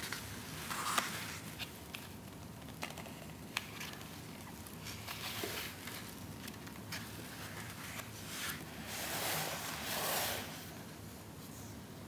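Pages of a softcover photobook being turned and smoothed flat by hand: soft paper rustles and swishes with a few small ticks, the longest and loudest rustle about nine to ten and a half seconds in.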